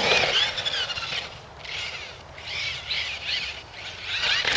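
Bird song: quick warbling phrases that rise and fall in pitch, four of them with short gaps between, the first about a second long.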